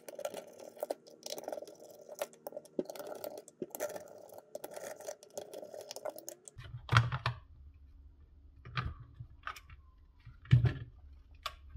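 Micro screwdriver turning small screws out of a plastic handheld inspection-camera housing: faint, rapid scratchy ticking. In the second half come about four sharp plastic knocks and clicks as the back compartment is separated from the case.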